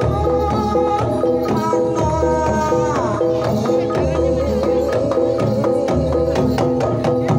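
Live Banyumasan gamelan music: a kendang drum beating out patterns over steadily repeated struck metal notes, with a long held melody note that slides down about three seconds in.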